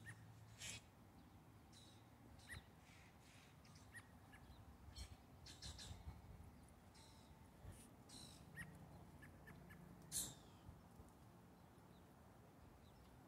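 Grackles calling in the background: a scattering of short, faint, squeaky call notes, one every second or two.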